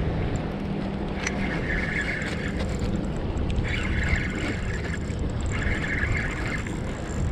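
Daiwa spinning reel whirring in spells of about a second, roughly every two seconds, over steady wind rumble on the microphone.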